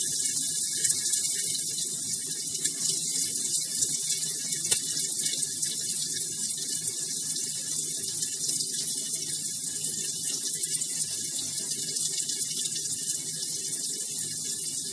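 Chopped onion frying in hot mustard oil with cumin seeds in a wok over a high flame: a steady sizzle with fine crackles throughout.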